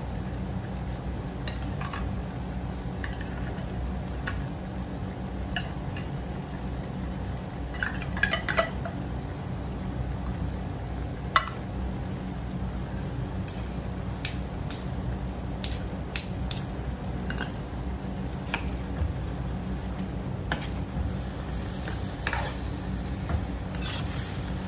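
Metal ladle stirring food in a wok, scraping and clinking irregularly against the pan, over a steady low hum.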